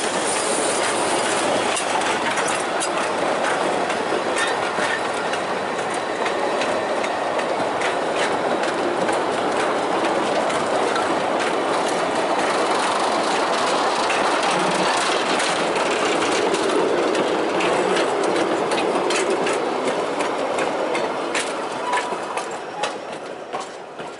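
Narrow-gauge slate wagons of a gravity train rolling past with no locomotive: a steady rumble of iron wheels on the rails with irregular clicks and clatter over the rail joints. It dies away near the end as the last wagon passes.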